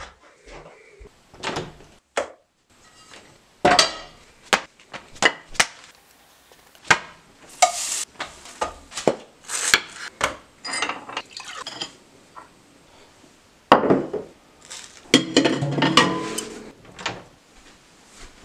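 Kitchen clatter from making a grilled cheese sandwich: a run of separate clinks, knocks and scrapes of a pan, utensils and a plate. A knife cuts through the toasted sandwich on a plate.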